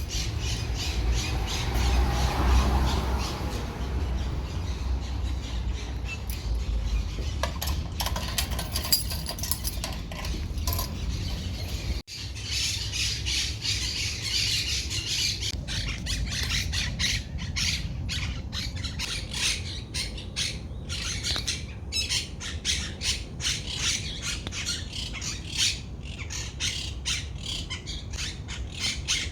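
Birds squawking and chattering in rapid, dense calls, in two stretches split by an abrupt cut about twelve seconds in. A low rumble lies under the first stretch.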